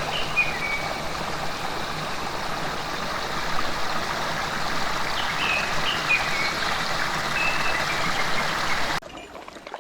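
Mountain stream flowing, a steady rush of water, with a few short high chirps over it. The water sound cuts off abruptly about nine seconds in.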